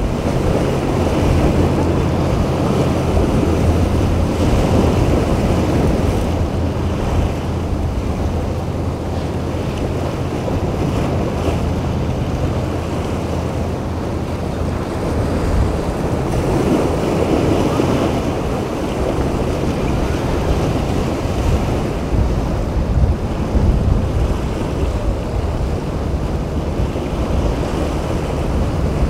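Waves and surf washing in a rough inlet, with wind buffeting the microphone and the low steady drone of boat engines under it, strongest in the first half.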